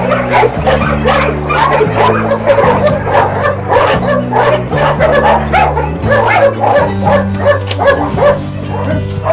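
Many dogs barking and yelping at once, in quick overlapping calls, over background music of slow held low chords.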